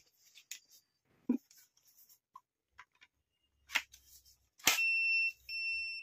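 Battery pack clicking into the handle of a Jainson Jupiter-400 battery-operated hydraulic crimping tool, followed by two steady high electronic beeps, each about half a second long, as the tool powers up ready to use. Light handling knocks come before the click.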